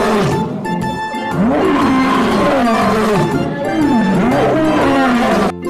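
Male lion roaring: a run of deep roars, each rising and falling in pitch, about one a second, over background music.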